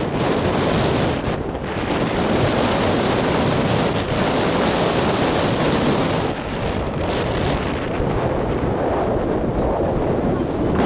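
Wind buffeting the microphone: a loud, steady rush of noise, dipping briefly about one and a half seconds in and again around six seconds.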